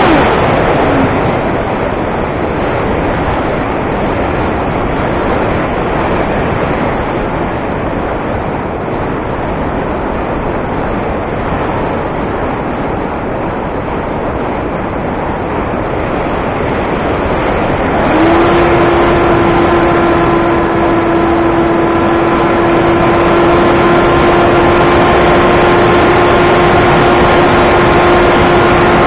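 Air rushing over a model plane in flight while its motor is throttled off in a glide. The motor's whine winds down and stops just after the start, then comes back about two-thirds of the way through and holds at a steady pitch under the wind noise.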